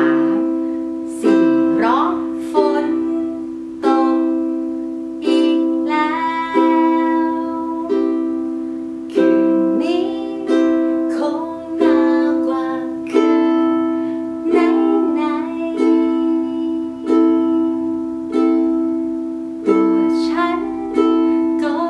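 Ukulele strummed with single downstrokes of the thumb, one about every 1.3 s and each left to ring out, through the C, A minor, F and G7 chords. A woman's voice sings the melody over the strumming.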